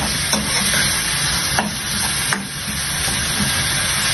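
Chopped vegetables and seasoning paste sizzling in oil in a frying pan as they are stirred, with a few clicks of the cooking utensil against the pan.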